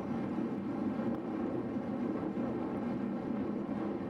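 Steady rumble of wind across the microphone of a camera on a moving road bicycle, with tyre and road noise beneath.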